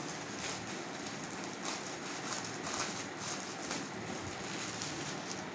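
Thin plastic garment packaging (a clothing polybag) crinkling and rustling in irregular crackles as it is picked up, handled and opened.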